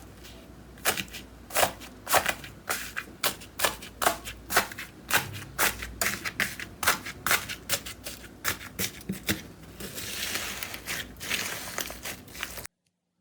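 Slime being pressed and worked by hand, giving off a run of sharp, irregular pops and clicks about three a second. Near the end it turns to a denser crackling for a couple of seconds, then stops abruptly.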